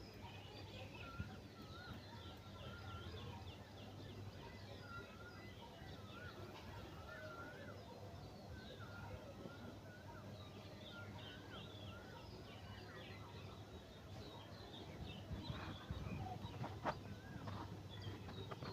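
Many small birds chirping and twittering together in a faint morning chorus over a steady low hum, with a few sharp clicks near the end.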